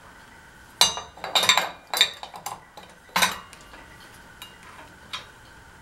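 Metal pieces clinking and clattering against one another as they are handled, in a cluster of sharp knocks with a brief metallic ring after each. The loudest strikes come about a second in and again about three seconds in, with a lighter clink near the end.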